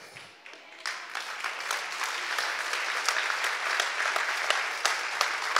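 Congregation applauding: many hands clapping together, starting about a second in and keeping on steadily.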